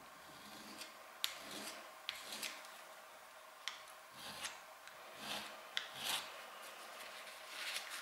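Small steel chisel being rubbed against a flat beach stone, which the maker thinks is sandstone: short, irregular gritty scraping strokes, about ten in all, some starting with a sharp click.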